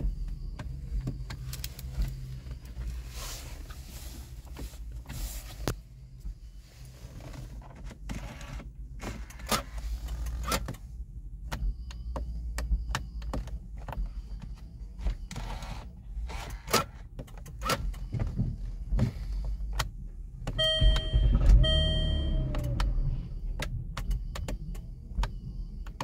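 Low steady rumble inside a parked car with scattered clicks and knocks, and about 21 seconds in, two short electronic chimes.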